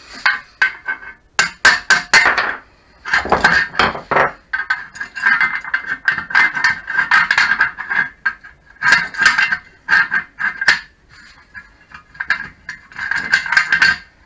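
Tension arm and its bolt being worked off the steel frame of a Tacx Flux trainer: clusters of metal clicks and knocks over a ringing tone, coming in several bursts with short gaps between them.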